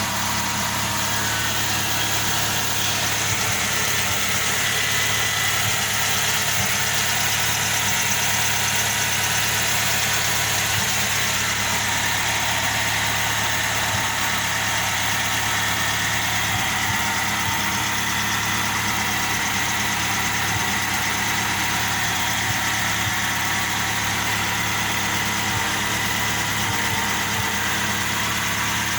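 Vehicle engine idling steadily, with a steady higher whine over the running. The owner suspects the noise is coming from the drive belts and is unsure whether it is normal.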